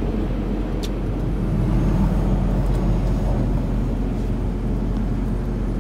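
Steady engine and road noise inside a truck cab at highway speed: a constant low drone with no change in pace, and one faint click about a second in.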